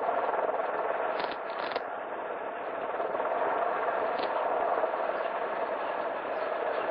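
Steady rushing noise with a few faint sharp cracks, two of them about a second in and another near four seconds in.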